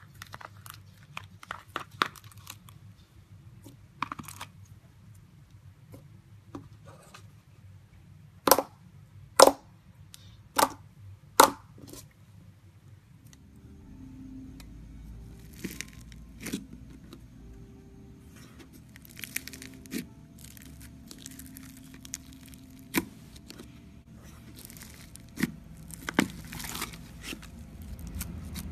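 Clear slime pulled and pressed by hand, sticky and crackling with scattered sharp clicks and pops; the four loudest come close together about a third of the way in. Then foam-bead slime (floam) is squeezed by hand, giving clusters of small crunchy clicks.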